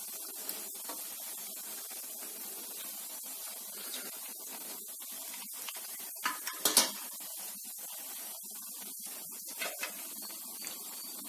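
Chakli deep-frying in hot oil in an iron kadai: a steady sizzle with scattered small pops, the loudest cluster a little past halfway.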